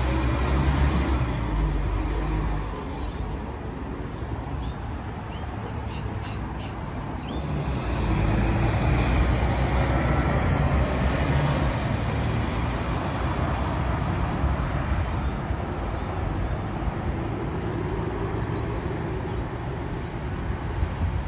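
A bus engine rumbling as it pulls away from the stop, fading over the first few seconds. Then steady road traffic at a busy intersection, with a route bus driving through and a few short high chirps partway in.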